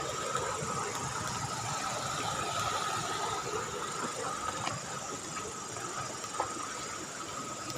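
Steady night insect chorus, with shrill unbroken tones, over the hiss of a river's running water, with a few faint ticks or knocks.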